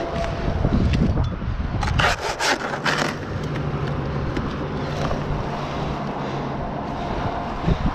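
Wind buffeting the microphone high in a palm crown, with dry palm fronds scraping and crackling against the climber's gear about two to three seconds in. A steady low hum follows.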